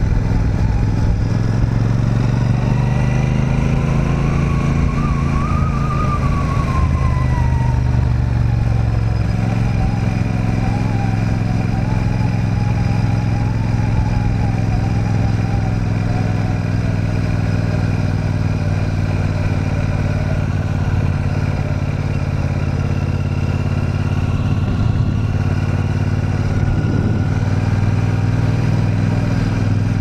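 Royal Enfield Super Meteor 650's 648cc parallel-twin engine running under way at low speed, its note climbing briefly about four to six seconds in, then easing back to a steady cruise.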